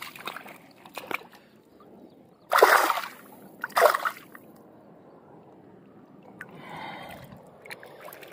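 Two loud splashes about a second apart, a hooked rohu carp thrashing in shallow water.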